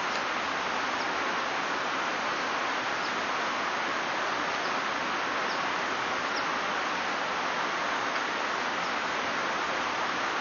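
Rushing whitewater of a mountain river: a steady, even roar with no change in level. Faint short high chirps come every second or so.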